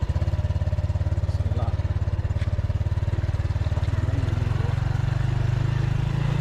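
Small motorcycle engine running steadily under light throttle as the bike rides along; its separate exhaust beats quicken into a smooth, even hum right at the start.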